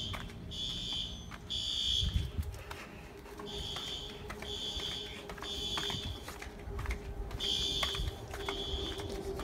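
Fire alarm sounding the three-beep evacuation pattern: high beeps of about half a second in groups of three, each group followed by a pause, repeating about every four seconds.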